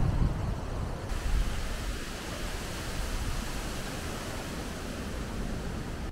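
Wind rushing over the camera's microphone: a steady noise with a low rumble, stronger in the first second or two, and a hiss that brightens about a second in.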